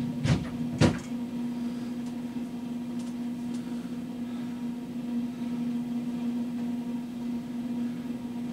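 Steady low electrical hum over faint room hiss, with two short knocks in the first second.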